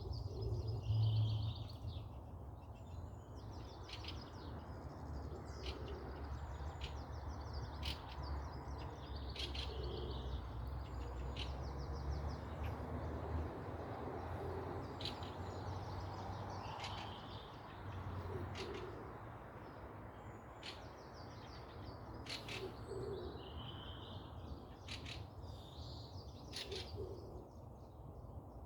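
Forest birdsong: several birds repeating high chirping phrases, with sharp short chip notes in between. Low hooting or cooing calls come every few seconds. Under it all runs a steady low rumble.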